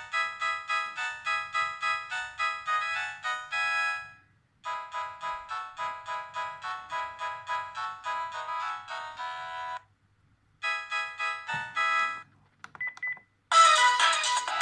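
Sharp V703SH mobile phone ringtones playing one after another: quick, evenly picked keyboard-like melodies, each cut off abruptly, with short silences about four and ten seconds in. Near the end a louder, fuller ringtone starts.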